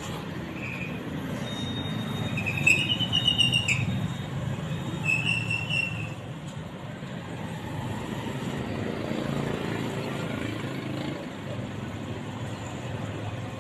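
Steady road traffic from passing motorcycles and other vehicles. A few short high-pitched squeals come and go in the first six seconds, the loudest about three seconds in.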